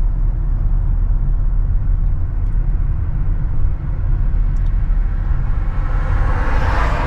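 A car driving over a damaged, uneven road, heard from inside: a steady low rumble of engine and tyres, with a rushing noise swelling near the end.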